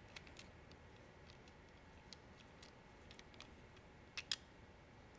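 Mostly near silence with faint, scattered small clicks of a Phillips screwdriver and plastic parts as the screws are worked out of a plastic handlebar display mount, with two sharper clicks in quick succession about four seconds in.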